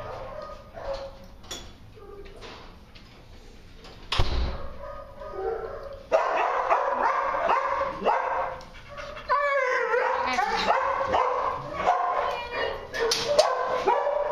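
Husky-type dog vocalizing: from about six seconds in, a dense run of short whines and yips whose pitch slides up and down, with a longer wavering call near ten seconds. A single sharp knock sounds about four seconds in.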